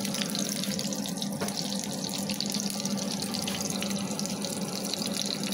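Chicken breast cutlets frying in oil in a nonstick frying pan: a steady sizzle with small crackles, over a steady low hum.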